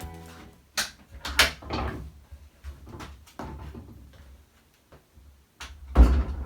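Handling noises: a series of separate knocks and scrapes, the loudest a heavy thump near the end.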